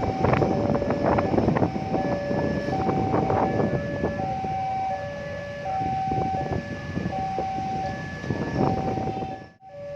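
Railway level-crossing warning alarm sounding two alternating tones, high then low, each lasting about two-thirds of a second. Under it a passing train rattles and clatters over the rails, thinning out after a few seconds. The sound drops out abruptly just before the end.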